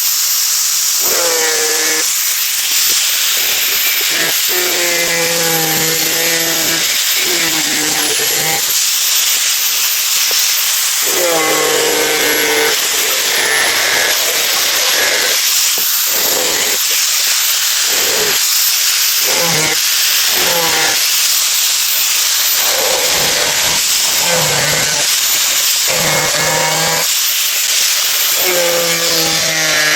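Toy gun noisemaker sounding continuously: a loud steady hiss with a high, warbling electronic tone that steps up and down. Short pitched sounds come and go underneath every second or two.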